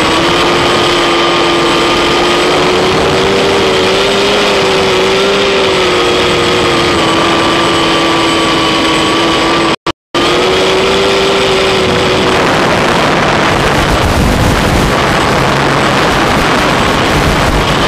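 Octocopter's eight electric motors and propellers whining steadily, their pitch wavering slightly as the throttle shifts. The sound cuts out briefly about ten seconds in, and over the last few seconds the motor whine fades into a rushing hiss.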